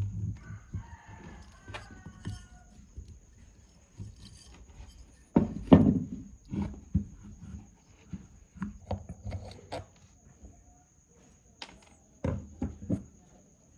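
Irregular knocks, taps and light clatter of hard parts being handled, with the loudest clatter about six seconds in and a short faint squeak near the start.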